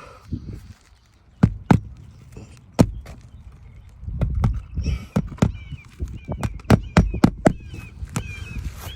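Irregular sharp knocks and taps, with rustling and scraping, as asphalt shingles are handled and worked on a roof. From about halfway through, small birds chirp repeatedly.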